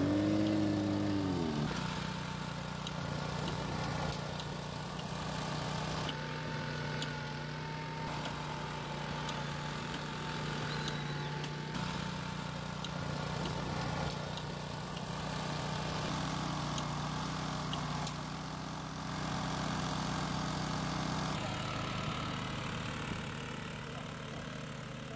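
Small petrol engine on a Graco LineLazer 250 MMA 98:2 airless road-line striping machine, running steadily at a constant speed. The sound shifts once, about 21 seconds in.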